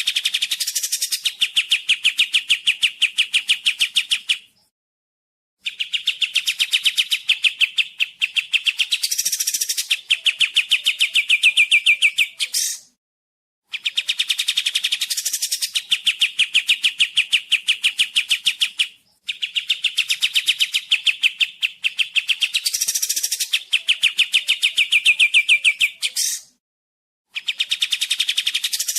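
Kapas tembak bird singing: long bouts of fast, rapidly repeated chattering notes, each bout several seconds long, with short pauses of about a second between them.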